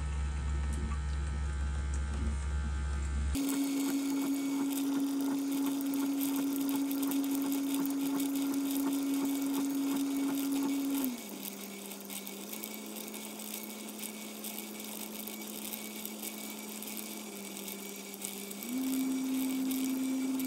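Robot vacuum-mop's drain pump running with a steady motor whine and a hiss of water, pumping out the internal water tank. About 11 seconds in, the whine drops in pitch and goes quieter, then rises back to its first pitch near the end. A low hum plays for the first few seconds before the pump starts abruptly.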